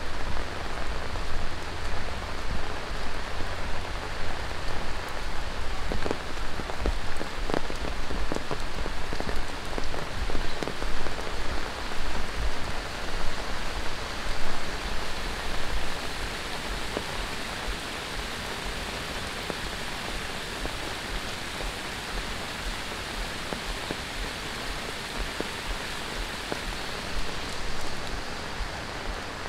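Heavy tropical monsoon rain falling steadily and hissing on the ground, with a few sharper drops ticking out of it. It is louder and more uneven in the first half, then settles to a steadier, slightly quieter hiss about halfway through.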